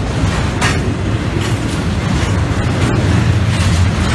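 Double-stack container freight cars rolling past at speed: a steady, loud rumble of steel wheels on the rails, with a few short, sharper noises over it.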